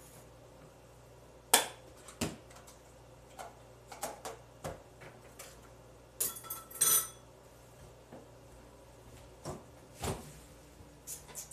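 Dishes, containers and utensils knocking and clinking on a kitchen counter during meal prep: scattered knocks, the loudest a sharp one about a second and a half in, and a quick run of ringing clinks around six to seven seconds in.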